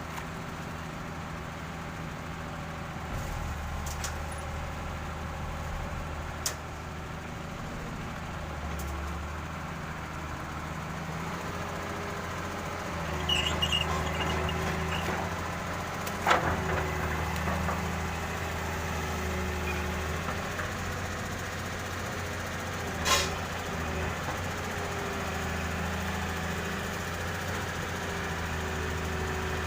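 Excavator diesel engine running, its note rising and falling as the machine works. A few sharp knocks stand out, the loudest about halfway through and again about two-thirds of the way through.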